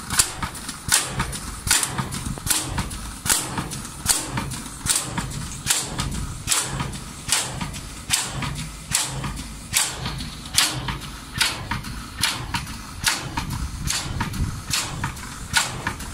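Pump in a filter press sludge-dewatering installation running with a steady clacking rhythm: a sharp clack about every 0.8 seconds, with lighter ticks and a hiss between.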